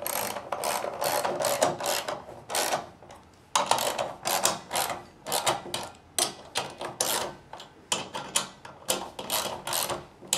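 Ratchet wrench clicking in repeated strokes as it tightens the bolts of a busway housing coupler, with a short pause a few seconds in.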